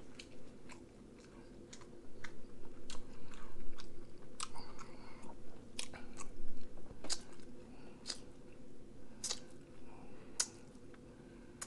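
A person chewing food close to the microphone, with many irregular sharp wet clicks of the mouth.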